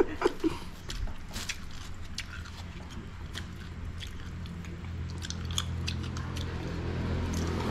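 Close-up biting and chewing of grilled chicken, with scattered small crunchy clicks. A low steady hum grows louder over the second half.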